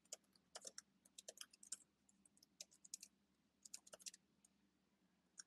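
Faint typing on a computer keyboard: a quick, uneven run of key clicks for about four seconds, then a pause and one more key press near the end.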